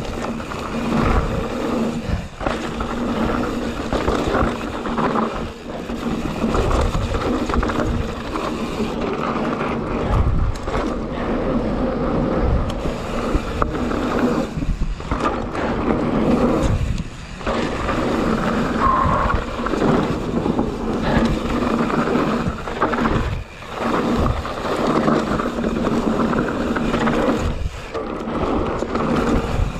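Mountain bike, a YT Jeffsy full-suspension bike, descending a hard, dry gravel trail: tyres rolling and crunching over loose gravel and the bike rattling over bumps, with a few brief lulls.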